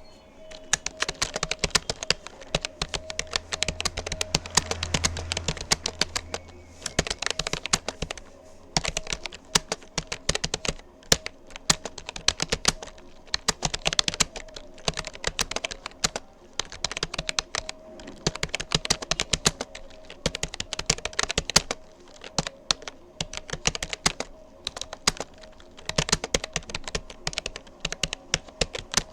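Fast typing on a Rapoo computer keyboard: a dense, irregular run of key clicks broken by short pauses between words, with a faint steady hum beneath.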